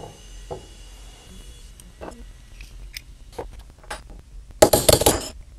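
Metal hand tools handled on a wooden workbench: a few light clicks and taps, then a loud flurry of metallic clanking and rattling lasting just under a second, about four and a half seconds in, as a wrench is worked onto a steel calculator shaft stacked with digit wheels.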